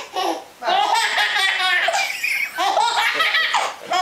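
Baby laughing hard, belly laughs in three long runs with short breaks for breath between them.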